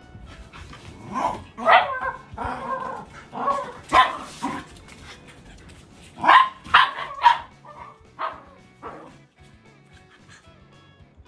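Dogs barking in rough play, in irregular short bursts, with a run of about four sharp barks about six seconds in.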